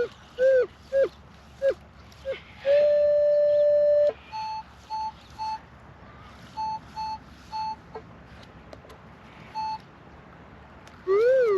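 Metal detector audio tones as the coil is swept over the ground: short rising-and-falling chirps, a long steady tone of about a second and a half about three seconds in, then groups of three short, higher beeps, and warbling double chirps near the end.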